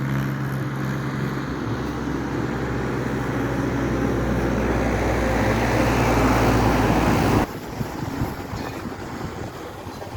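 An engine running steadily and growing louder, then cut off suddenly about seven seconds in, leaving quieter rough noise.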